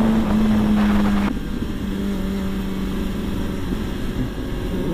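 Sport motorcycle engine running at a steady cruise, heard from a camera on the bike with wind rushing past. The engine note steps slightly lower and quieter about a second in.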